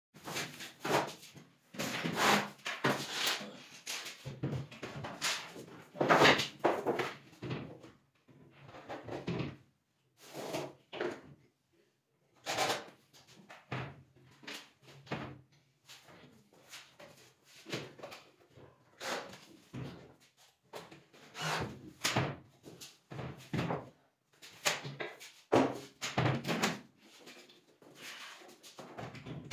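Wardrobe doors and panels being handled and fitted: repeated knocks, bumps and door closings, with short clattering bursts between quieter gaps.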